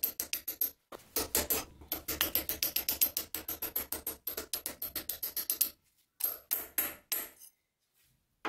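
Quick hammer blows on steel, about five or six a second in runs with short pauses, driving a rusted crossguard down and off a knife's tang. The tapping stops near the end.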